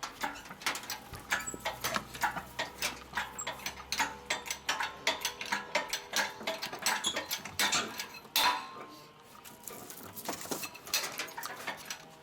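Irregular metallic clinks and knocks as an engine is hoisted out of the car's engine bay, with a low hum during the first few seconds.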